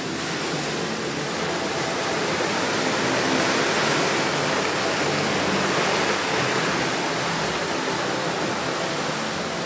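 Muddy water rushing and splashing as a Land Rover Defender 90's wheels plough through a deep water-filled rut: a steady surging wash that swells toward the middle.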